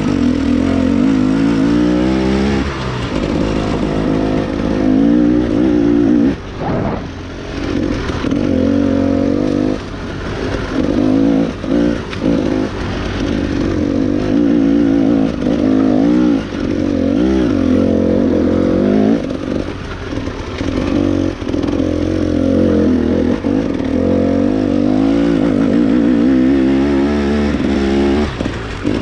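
KTM EXC 250 enduro dirt bike engine under way, its revs climbing and falling again and again as the throttle is worked, with a few short drops where the throttle is shut.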